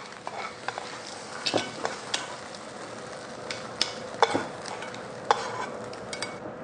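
A metal spoon scraping and tapping against a black frying pan in irregular strokes, scooping curry seafood fried rice into a ceramic gratin dish, over a steady sizzle from the hot rice in the pan.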